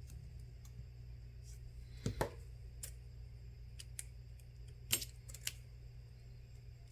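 Scattered small clicks and taps from handling a smartphone and tape during a repair, with a louder pair about two seconds in and another near five seconds. A faint low hum runs underneath.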